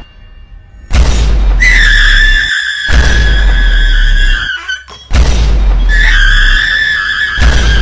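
High-pitched scream, heavily distorted and bass-boosted. It is held at one pitch for about three seconds and falls off at the end, then after a brief break starts again and carries on.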